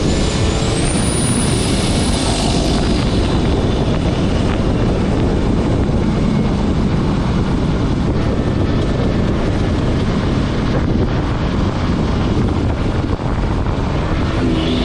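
Turbo whistle from a Borg Warner 8374 turbocharger with an open inlet trumpet, rising to a high pitch as it spools up during the first two seconds, then fading. Another rising whistle begins near the end. Steady road and wind noise rushes over the bonnet-mounted microphone throughout.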